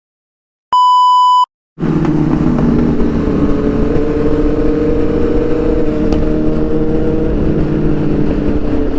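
A short electronic beep at about 1 kHz, lasting under a second, between moments of dead silence. From about two seconds in, a motorcycle engine runs at a steady pitch with road noise underneath.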